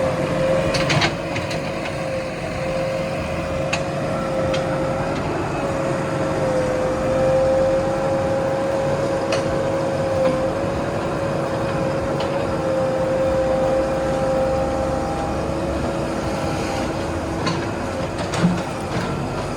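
Backhoe loader's diesel engine running steadily under work, with a wavering whine held throughout and a handful of sharp knocks and clanks, one about a second in and a cluster near the end.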